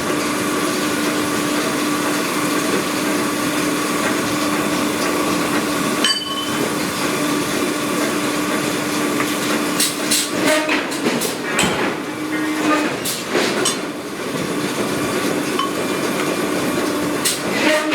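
Steady, loud industrial machinery noise in a steel forge, with a constant hum and, in the second half, several sharp metallic knocks and clanks.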